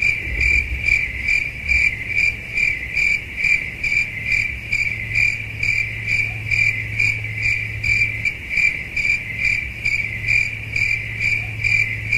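Cricket chirping: one high chirp repeated steadily about twice a second, with a faint low hum beneath.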